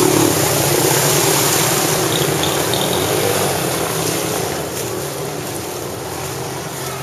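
Several small motorbike and scooter engines running as they ride through shallow floodwater, with splashing water and a steady rushing noise, growing gradually quieter over the second half.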